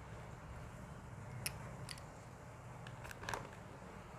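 A few faint, sharp clicks of small plastic toy pieces (stick ice creams) being set into a plastic toy ice-cream cart, over a low steady hum.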